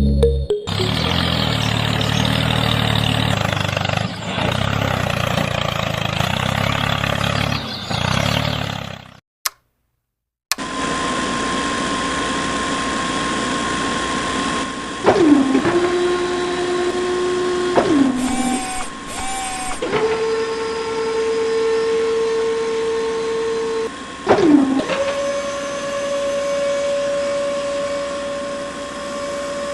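Small electric motors of a model drilling rig running with a steady whir. The pitch drops and resettles several times as the load changes, with a short break of silence about nine seconds in.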